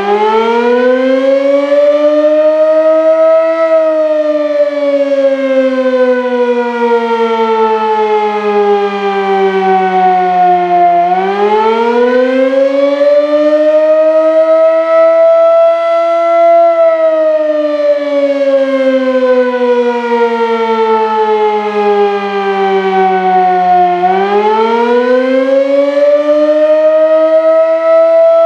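Sterling M-5 electromechanical fire siren sounding a test signal: it finishes winding up in the first few seconds, then wails slowly down and back up twice, about 13 seconds from one peak to the next, each rise quicker than the fall.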